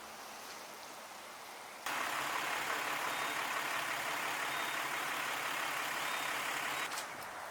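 A motor vehicle's engine running with a steady low hum under a loud rushing noise, which starts abruptly about two seconds in and stops abruptly near the end; quieter outdoor background either side.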